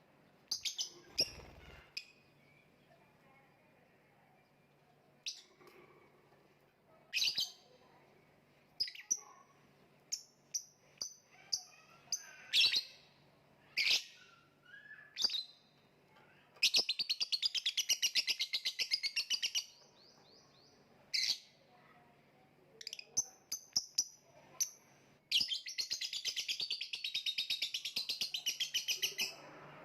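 Lovebird calling: scattered sharp, high chirps, then twice a long run of rapid, evenly repeated chattering notes lasting about three to four seconds each.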